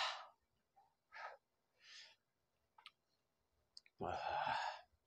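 A man breathing out hard through his open mouth in a series of hissing, sighing breaths, with the longest and loudest one about four seconds in. He is panting against the burn of an extremely hot chili chip.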